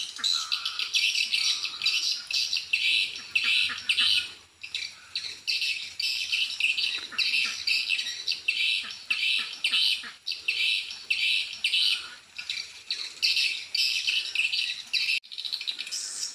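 Swiftlet calls: rapid, high twittering chirps in dense bursts, almost without pause, with a brief break near the end.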